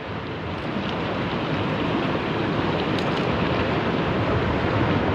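Steady rushing noise of sea and wind, slowly growing louder, with a faint tick about three seconds in.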